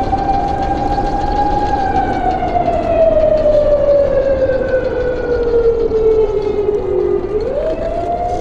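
Whine of an RC crawler's brushless motor and geared drivetrain (Hobbywing AXE540 2300KV motor) crawling over rock under load, with a rough grinding noise underneath. The whine holds steady, then drops slowly in pitch over several seconds as the truck slows on the climb, and rises sharply again near the end.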